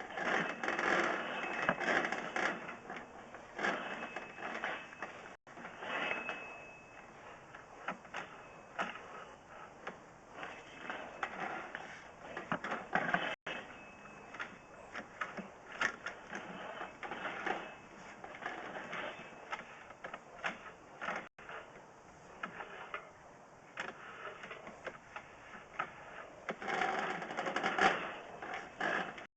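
7/8-inch steel sewer cable rattling and clicking in irregular bursts as it is turned and worked by hand in cast iron drain pipe, to free a stuck sewer camera.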